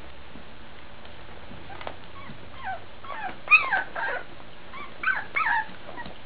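Young Labrador retriever puppies whimpering: a run of short, high cries with bending pitch that starts a little before halfway through, the loudest near the middle.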